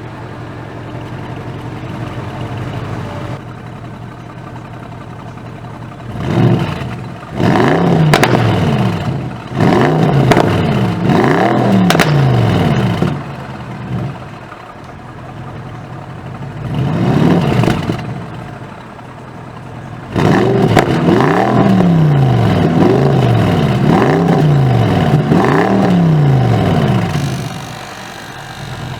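Bentley Continental GT V8 S's twin-turbo 4.0-litre V8 with Sports Exhaust, idling and then revved again and again in short rising-and-falling blips. Sharp exhaust crackles come among the revs, and the engine settles back to idle near the end.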